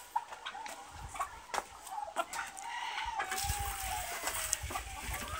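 Dutch white-crested chickens clucking with short calls. About three seconds in comes one long call that slowly falls in pitch.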